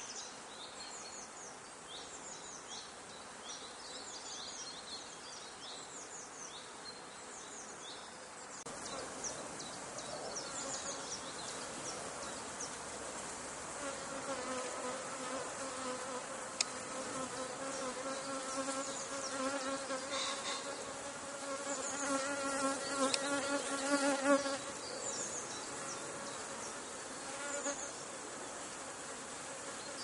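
Buckfast honey bees buzzing in numbers around their hive entrances, a steady hum. From about halfway through, a fuller pitched drone swells as bees fly close by, loudest about three-quarters of the way in.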